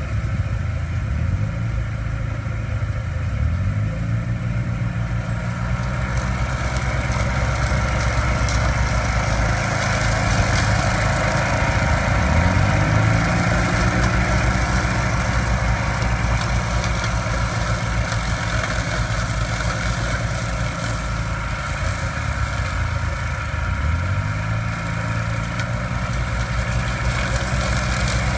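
Engines running steadily as a tow-behind brush mower is pulled, with the engine speed rising three times: near the start, midway and near the end.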